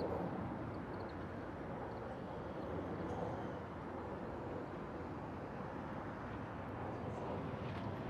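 Steady low outdoor background rumble with no distinct events.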